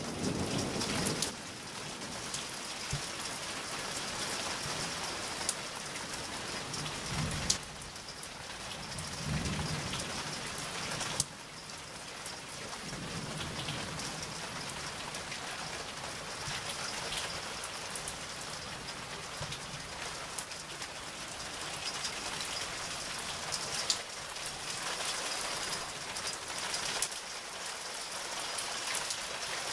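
Steady rain falling in a thunderstorm, with low thunder rumbling a few times in the first half and a few sharp taps of drops striking nearby.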